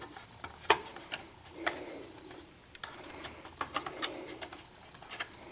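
Light clicks and taps of a router's circuit board against its plastic case as the board is worked under the case's retaining tabs. A sharper click comes a little under a second in, and a cluster of quick ticks about two thirds of the way through.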